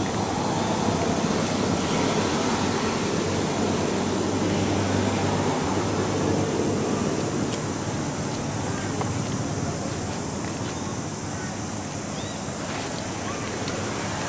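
Steady rushing noise of wind on the microphone, with a few faint high chirps in the second half.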